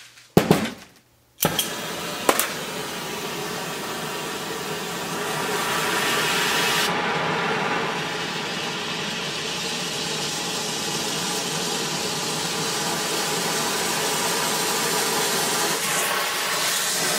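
Gas torch being lit, with two sharp clicks and the flame catching about a second and a half in, then the torch flame hissing steadily as it heats the early Ford banjo rear axle housing.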